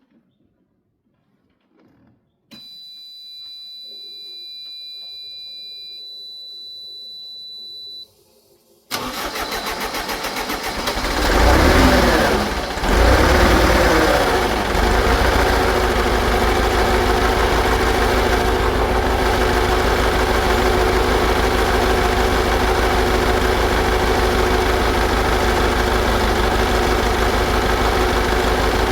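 Rebuilt Perkins 1104C four-cylinder diesel starting for the first time after its rebuild. First comes a low hum with steady high tones for about five seconds. The starter then cranks it rhythmically for about two seconds, it catches, rises and falls in speed briefly, and settles into a steady run.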